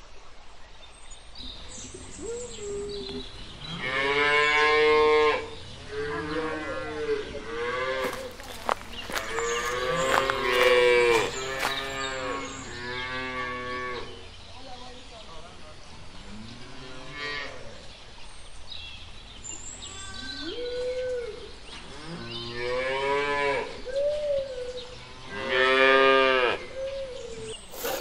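Several cows mooing, about a dozen long calls one after another, some overlapping, each rising and falling in pitch; the loudest come about five seconds in, about ten seconds in and near the end.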